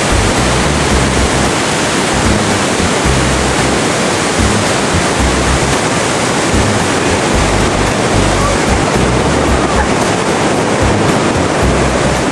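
Loud, steady roar of floodwater pouring through the dam's spillway gates and churning in the river below, with an uneven low rumble underneath. It is the sound of a record flood release of about 150,000 cubic feet per second.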